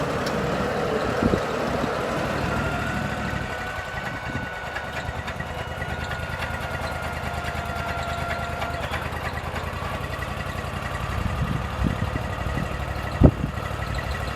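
Portable sawmill's engine running steadily, with a faint high whine for several seconds in the middle and a single sharp knock near the end.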